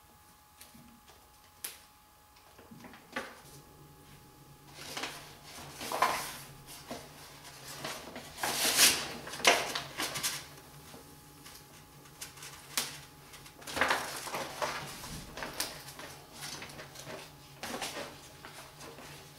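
Large vinyl wall decal and its paper backing rustling and crackling as the sheet is handled and pressed onto a wall, in irregular bursts that are loudest around the middle.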